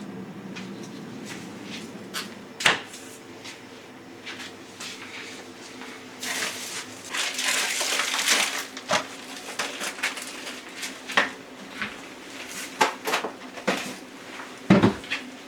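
Household handling sounds: scattered knocks and clicks of things being set down and opened, with a few seconds of rustling or scraping in the middle, over a steady low hum.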